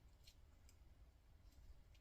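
Near silence: room tone with three or four faint, short clicks.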